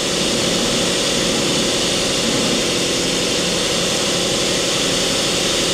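Mori Seiki MT-2000SZ CNC turning/milling center running under power: a steady mechanical hum with hiss, unchanging throughout, as the lower turret is jogged on its X axis.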